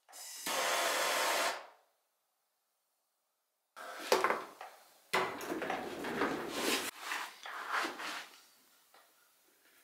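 Propane torch flame hissing steadily for about a second and a half, then shut off; it is heating a copper pipe joint for soldering. After a pause come knocks and clatter, with another loud rushing hiss in the middle.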